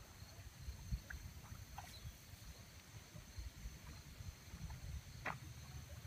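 Faint outdoor field ambience: an uneven low rumble of wind on the microphone, with a few faint short ticks, the clearest a little after five seconds.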